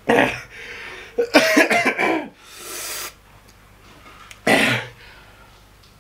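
A man coughing hard from the burn of a just-eaten ghost chili pepper: one cough at the start, a quick run of coughs about a second in, a hissing breath out, then one more cough near the end.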